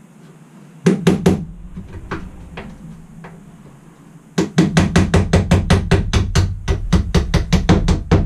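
Hammer blows driving a metal through bolt into a wooden bed frame: three quick strikes about a second in, then a fast, even run of about six blows a second through the second half.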